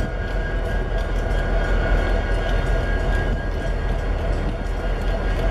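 Diesel freight locomotives, a Kansas City Southern de México unit and Canadian Pacific 6250, passing at close range: steady, heavy engine rumble mixed with wheel and rail noise. A thin steady high tone runs underneath.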